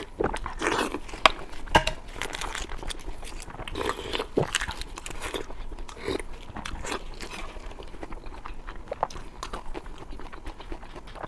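Close-miked eating: a person biting and chewing food, with wet mouth sounds and sharp crunchy clicks. The loudest clicks come about a second and two seconds in.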